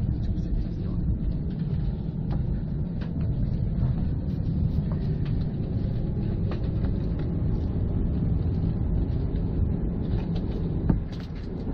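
Steady low rumble of a passenger train car heard from inside, with a few faint clicks and one sharp knock near the end.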